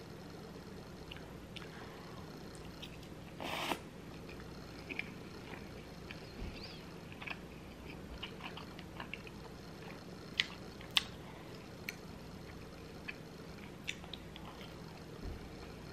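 Close-miked chewing and biting of a person eating loaded beef bulgogi fries, with many small wet mouth clicks. A brief louder noise comes about three and a half seconds in, and two sharper clicks a little after ten seconds.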